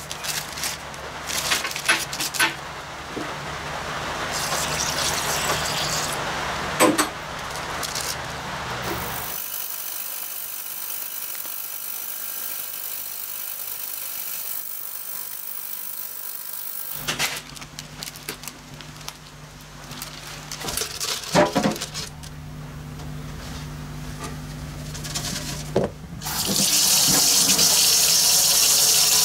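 Small metal engine parts clicking and clinking, then a steady stretch of the ultrasonic cleaner bath running. Near the end a tap runs hard into a stainless steel sink as a part is rinsed under it, the loudest sound here.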